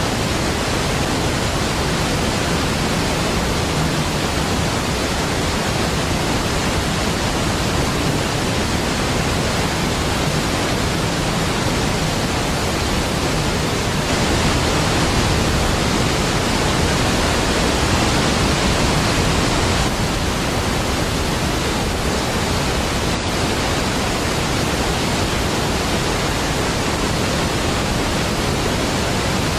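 Steady, dense rush of a large waterfall (Niagara Falls), an even wash of falling water with no breaks, swelling slightly for a few seconds midway.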